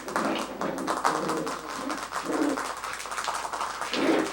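Young Coton de Tulear puppies whimpering and cooing softly, with light clicks and taps on the floor.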